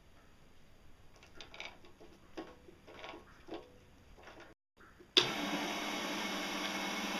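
A chuck key clinking in a small metal lathe's three-jaw chuck as it is tightened on a plastic rod, a few light clicks and knocks. About five seconds in the lathe is switched on and its motor and spindle run steadily, much louder than the clicks.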